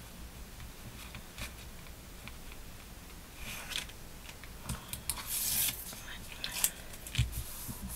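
White card being handled and pressed flat on a cutting mat: light rustling with small taps, and a short paper scrape a little past the middle.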